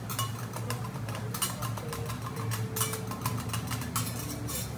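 Metal teppanyaki spatulas clinking and scraping now and then on the steel griddle while a lobster cooks on it, over a steady low hum.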